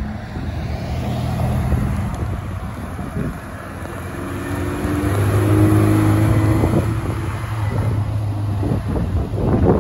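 A 1986 Porsche 944's four-cylinder engine driving past, growing louder to a peak about halfway through and then fading as the car pulls away. Wind buffets the microphone near the end.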